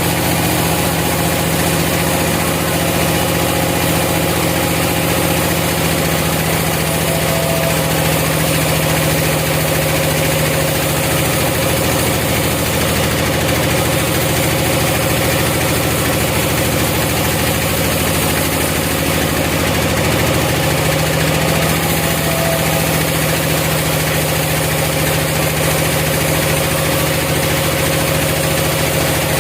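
Engine of a sawmill running steadily, its note shifting slightly about halfway through before settling back.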